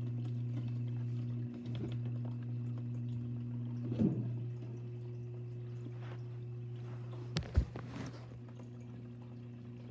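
Steady low hum, with a soft knock about four seconds in and a few sharper knocks and a thump a little after seven seconds.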